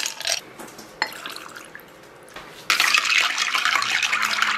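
A couple of ice cubes clink into a glass mug, then, from a bit past halfway, water pours steadily over the ice.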